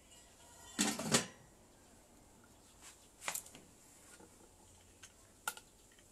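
Handling noises at a small metal drum smoker as the foil-wrapped beef goes in and the lid goes back on: a double clatter about a second in, then two sharp single clicks later on.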